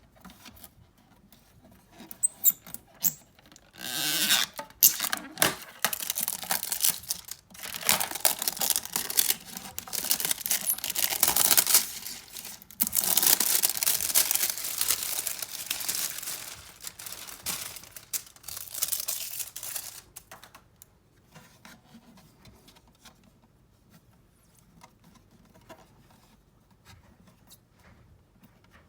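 Packaging being torn open and handled: a few clicks, then noisy tearing and rustling in stretches from about four seconds in to about twenty seconds, followed by only faint handling sounds.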